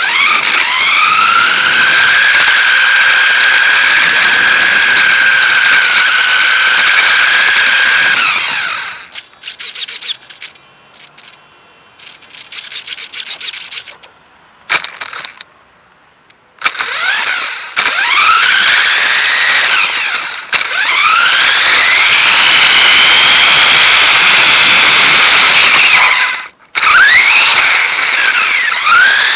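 Electric motor of a Dromida DB4.18 1/18-scale RC buggy whining at full throttle: the pitch sweeps up sharply with each burst of throttle and holds high. There is a quieter stretch of light clicks for several seconds in the middle, and a brief cutout near the end.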